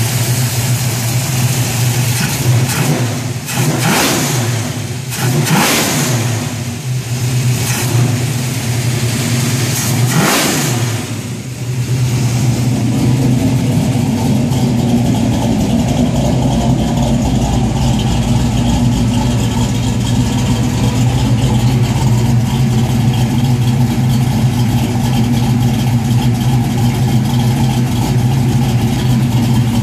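1971 Chevy Nova's four-barrel-carbureted engine running, its throttle blipped about four times in the first dozen seconds with the revs rising and falling back, then idling steadily with a deeper exhaust rumble. The carburettor is being tuned to cure a hesitation off idle.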